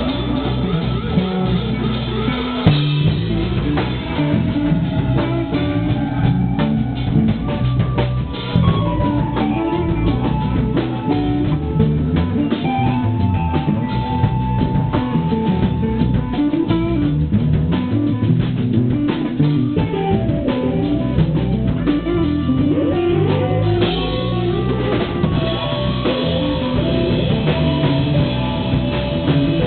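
Live band jamming: a drum kit and a guitar playing together, with a few long held notes.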